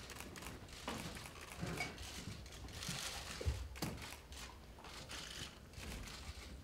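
Faint conference-room ambience: scattered rustling and a few soft knocks, such as chairs and papers being moved around a meeting table.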